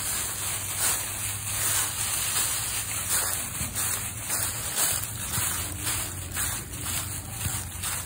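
Dry fallen leaves crunching and rustling underfoot as a person and a small dog walk through them, about two steps a second.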